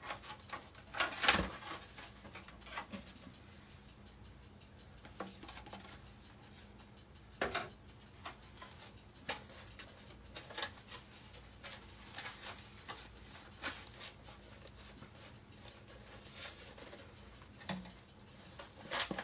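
Hard plastic model-kit parts and paper packing being handled in a cardboard box: scattered light knocks and rustles, the loudest knock about a second in.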